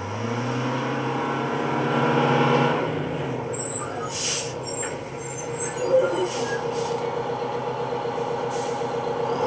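Bus engine running as the bus pulls up. Air brakes hiss about four seconds in and again twice later, and a brief high squeal comes with the first hiss.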